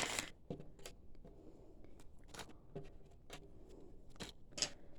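Scattered light clicks and rustles of loose jigsaw puzzle pieces and their plastic bag being handled, with one sharper click near the end.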